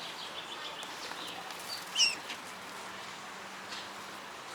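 Sparrows chirping: scattered short chirps, with one louder chirp about two seconds in.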